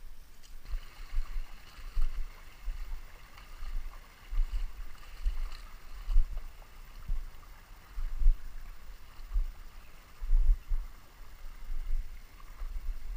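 Running river water, with irregular low thumps about once a second.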